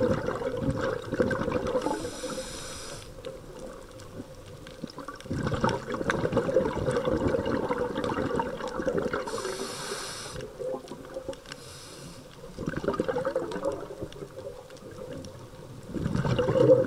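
Underwater diver's breathing through a scuba regulator: a short hissing inhale followed by a longer rush of bubbling exhaust, the cycle repeating every several seconds.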